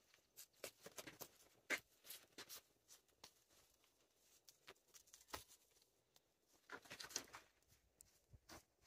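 Faint, scattered rustles and soft ticks of a harvested wild turkey being handled and cut apart by hand, with a sharper tick about two seconds in and a busier patch near the end.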